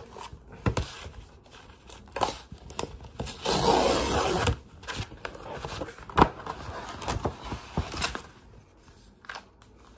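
Paper being handled, with a crinkling, tearing stretch lasting about a second near the middle, among scattered taps and clicks.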